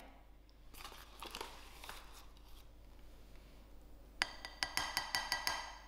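Metal spoon spooning self-raising flour into a mixing bowl: a soft rustle of flour, then a quick run of about eight ringing clinks as the spoon taps against the bowl.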